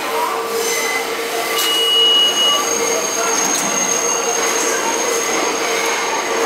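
Subway train running through the station, with steady high-pitched wheel squeal over a constant hum. A sharper, lower squeal note comes in about a second and a half in and lasts about a second.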